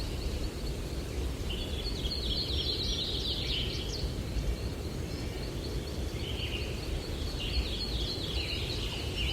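Songbirds chirping in quick trilled phrases, in two bouts: one starting about a second and a half in, another from about six and a half seconds. Under them runs a steady low rumble of breeze.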